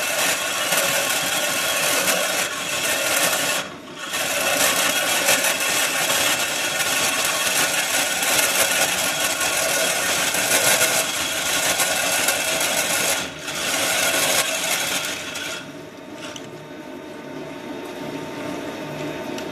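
Metal lathe drilling into a spinning phosphor-bronze bar with water coolant running: a steady, hissing, scraping cut. It drops out briefly twice, then falls to a quieter running sound about 16 seconds in as the cut ends.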